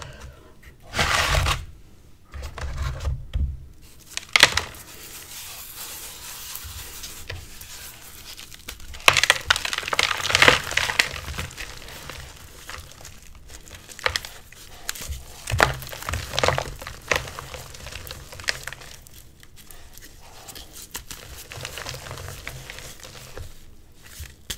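Moulded blocks of reformed gym chalk crushed and crumbled in the hands: irregular dry crunching and crackling as the blocks break into powder, with the loudest crunches a few seconds apart.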